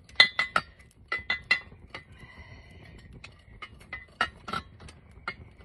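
Metal clinking of a campfire tripod's hanging chain and hook with the kettle on it, as the kettle is hung and adjusted over the fire: a quick run of clinks in the first second and a half, then a few more about four seconds in, with a light metallic ring.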